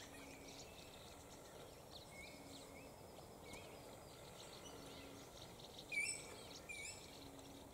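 Faint bird chorus: short, high, rising chirps repeating every second or so, with two louder chirps about six seconds in. Under them, a low hoot repeats at a steady interval.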